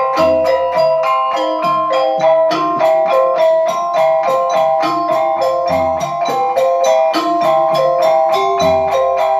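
Balinese semar pegulingan gamelan playing: bronze metallophones struck in a rapid, even stream of ringing notes, with a few deep kendang drum strokes, about half a second in, near six seconds and near nine seconds.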